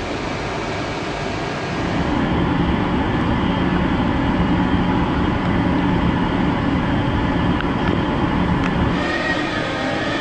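Steady low machinery rumble and hum, louder from about two seconds in. Near the end it gives way to a slightly rising whine from a Panama Canal electric towing locomotive climbing the lock incline.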